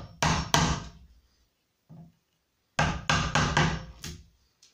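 Sharp knocks of a wood chisel being struck to chop out the latch-plate recess in the edge of a poplar door: three quick strikes, a pause, then a run of about six more.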